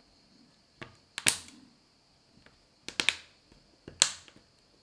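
Plastic back cover of a Samsung Galaxy A20e being pressed onto the phone's frame, its clips snapping into place with several sharp clicks in small groups about a second apart.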